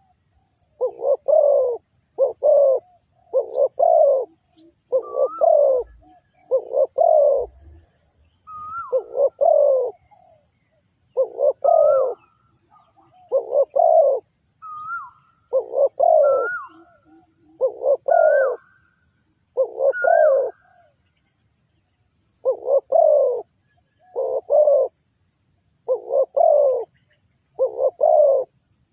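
Spotted dove cooing: a long series of short, throaty coos, a few opening with a brief upward note, with a pause of about two seconds roughly two-thirds of the way through. Small birds chirp faintly in the background.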